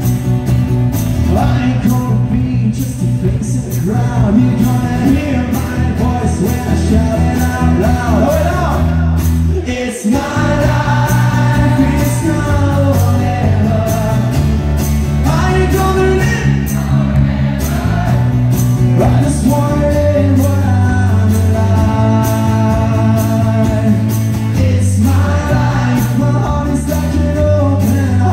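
Live band playing country-rock: strummed acoustic guitar, electric bass and drums, with a male singer. The music drops out briefly about ten seconds in, then the band and singer carry on.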